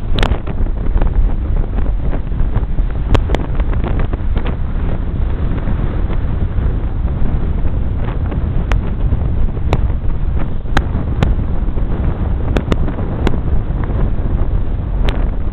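Strong wind buffeting the camera microphone: a loud, heavy rumble with scattered sharp clicks throughout.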